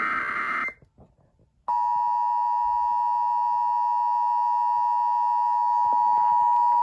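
Emergency Alert System broadcast signals. The end of a SAME header burst (a harsh digital data screech) stops less than a second in. After about a second of silence, the steady two-tone EAS attention signal starts and holds, announcing an incoming emergency alert.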